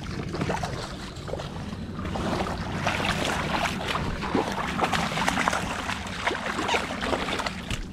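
Close crackling, rustling and scuffing from handling a landed salmon and stepping on a muddy river bank, over the steady rush of the river; the handling noise grows busier about two seconds in.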